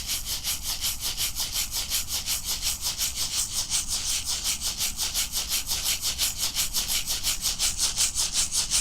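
A shamanic rattle shaken in a rapid, even rhythm, each stroke a dry hissing swish, growing a little louder near the end.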